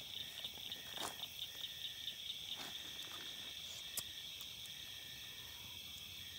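Night insects chirring in a steady, high, even chorus, with a few faint knocks about one, two and a half and four seconds in.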